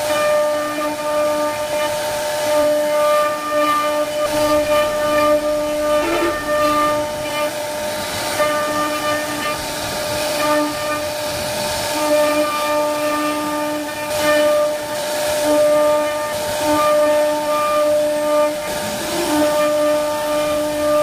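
CNC router spindle whining steadily as its bit carves relief into a wooden door panel, over the hiss of the cutter in the wood; a lower tone in the whine keeps cutting in and out.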